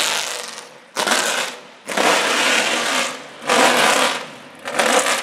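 Modified Nissan Silvia's exhaust revving hard in four rasping surges as the car pulls away, each one cutting off sharply between throttle blips.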